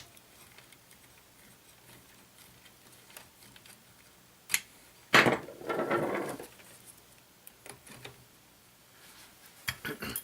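Small clicks and handling noises of parts and tools being worked on a switch, with one louder rustling scrape lasting about a second just past the middle.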